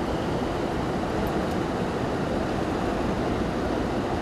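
Steady road and engine noise heard inside a moving car's cabin, an even rumbling hiss with no distinct events.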